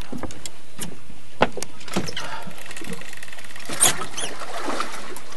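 Sharp clicks and knocks of fishing tackle and gear on a boat, two of them louder, about one and a half and four seconds in, with a high, whine-like tone for about a second and a half in the middle.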